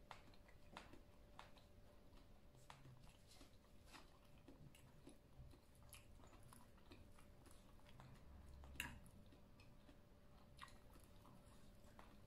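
A person faintly chewing a mouthful of noodle salad, with soft wet mouth clicks. A sharper click comes about nine seconds in.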